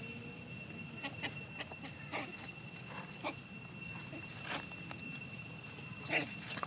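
Long-tailed macaques moving about on grass and dry leaves: scattered light rustles and taps, with a louder, sharper scuffle about six seconds in as the young monkeys tussle, over a steady high-pitched whine.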